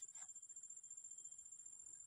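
Near silence, with faint, steady, high-pitched insect trilling that pulses rapidly.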